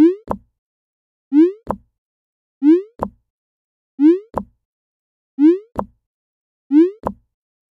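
Synthetic pop sound effect repeated evenly about every 1.3 seconds, six times: each is a short upward-sliding 'bloop' followed by a sharp click.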